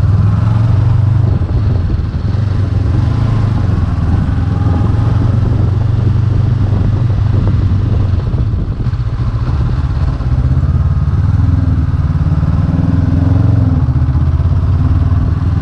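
Honda CB500X's parallel-twin engine running steadily as the motorcycle is ridden, heard from the rider's seat.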